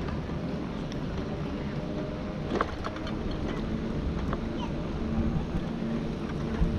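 Electric mobility scooter running along a paved path: a steady low rumble, with a faint steady hum setting in about four seconds in.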